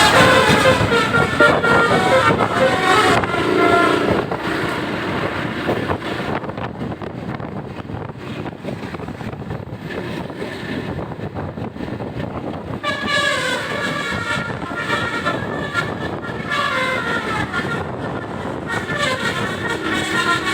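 Multi-tone 'basuri' telolet bus horns playing short melodic tunes, in the first four seconds and again from about thirteen seconds in. In between there is only engine and traffic noise.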